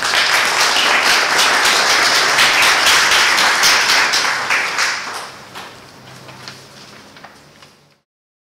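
Audience applauding: steady clapping for about five seconds, then thinning out and cutting off abruptly about eight seconds in.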